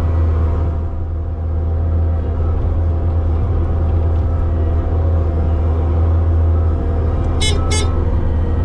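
Loader engine running steadily with a deep drone while salt trucks are being loaded. Two quick toots, like a vehicle horn, sound close together near the end.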